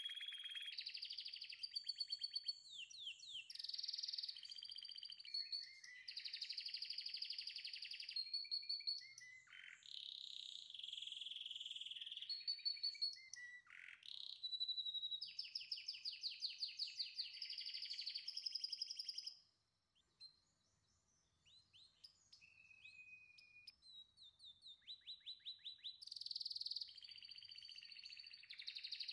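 Songbird singing: fast trills, rapid chirps and held whistled notes, breaking off briefly about two-thirds through before starting again more softly.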